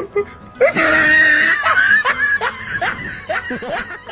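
Loud laughter: a shrill whooping cry about half a second in, breaking into a run of quick "ha-ha" bursts.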